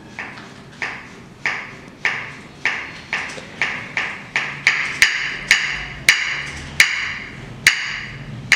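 Loose tuned ceramic floor tiles knocking and ringing as they are stepped on and rocked: a steady beat of pitched clinks, about two a second, growing louder toward the middle.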